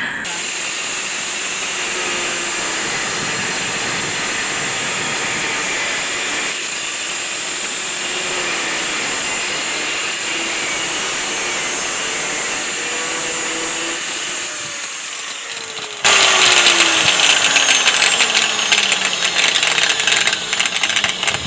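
Electric angle grinder cutting into a car's rocker panel, its motor pitch sagging and recovering under load. The disc is going through a thick packing of body filler rather than sheet steel. About sixteen seconds in, the cutting suddenly becomes louder and harsher.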